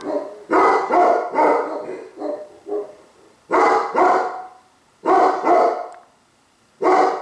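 Tibetan Mastiff barking repeatedly: loud, deep barks in clusters, with brief pauses between bouts.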